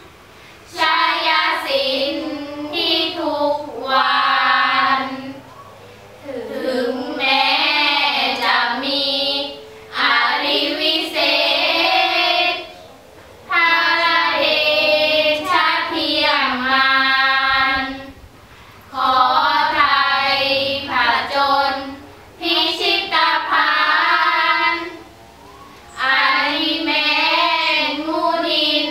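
Five girls chanting sarabhanya, the melodic Thai Buddhist recitation, together in unison: sung phrases of two to four seconds each, separated by short pauses for breath.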